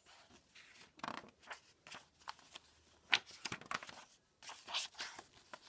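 Paper pages of a picture book being handled and turned by hand: irregular rustling and crackling in short spurts, with a sharp click a little after three seconds in.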